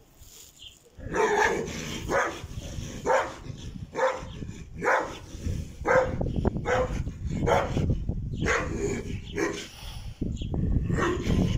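Large guard dog barking repeatedly, about one to two barks a second, starting about a second in with a short break near the end. Agitated territorial barking at an unfamiliar dog in its yard.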